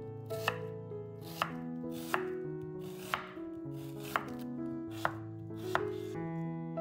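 Chef's knife slicing a peeled onion into half-rings on a wooden cutting board: about seven strokes roughly a second apart, each a short cut that ends in a sharp knock of the blade on the board. Soft background music plays underneath.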